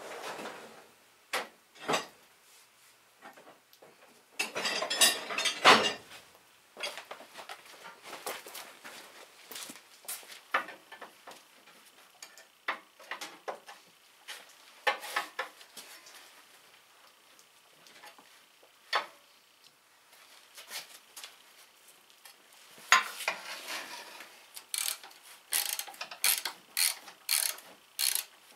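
Hand tools working on a garden tractor's steel frame and rear-axle housing: scattered metal clanks and knocks, a louder scraping rattle about five seconds in, and runs of quick ratchet-wrench clicks near the end as bolts are worked.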